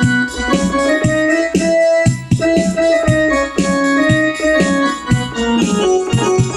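Yamaha PSR-E283 portable keyboard playing back built-in music: an organ- and electric-piano-like melody over a steady drum beat of about two hits a second.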